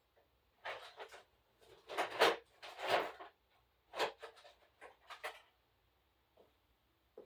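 Parts of an opened GFCI outlet being handled: a string of irregular short clicks, rattles and scrapes of small plastic and metal pieces, dying away about halfway through.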